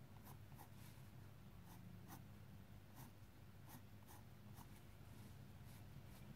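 Coloured pencil drawn over paper in short, faint scratching strokes, about two a second: strands of hair being hatched in with quick, bold lines.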